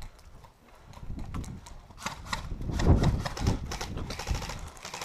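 Footsteps: quick, irregular thumps and knocks, loudest about three seconds in.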